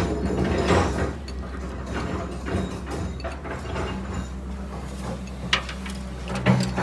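Hand tools clicking and scraping on metal, with a run of sharper clicks near the end, over a steady low hum.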